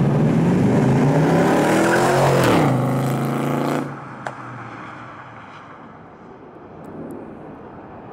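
1966 Chevrolet C10 with a swapped-in 5.3 L Vortec LS V8 breathing through a Magnaflow exhaust, accelerating past with a rising note. The note drops as the truck goes by. The sound falls off sharply about four seconds in and fades as it drives away.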